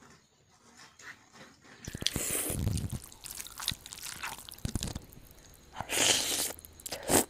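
Close-miked eating: noodle soup being slurped and chewed into a handheld microphone, starting about two seconds in, with the loudest slurp near the end.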